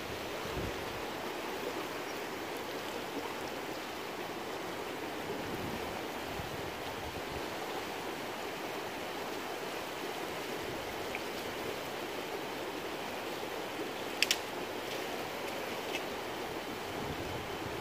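Steady rushing of a fast river flowing past a rocky bank, with a brief sharp click late on.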